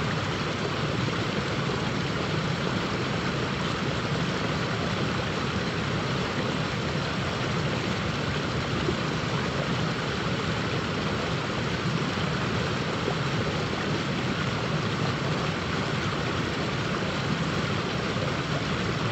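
Steady rush of river water running over a riffle.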